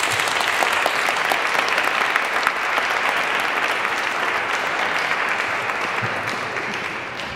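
Audience applauding, many hands clapping steadily, then fading near the end.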